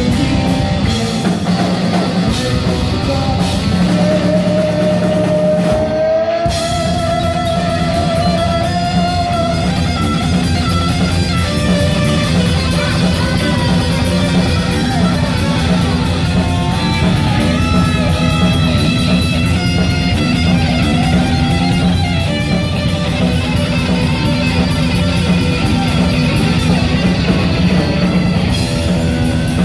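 Heavy metal band playing live: distorted electric guitars, bass and drum kit in an instrumental passage with no vocals. A lead guitar holds one long, slightly rising note a few seconds in, and the drums come in harder and denser about six seconds in.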